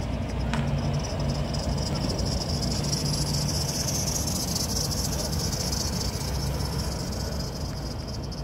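Insects trilling steadily in a high, fine buzz that is strongest in the middle, over a low rumble.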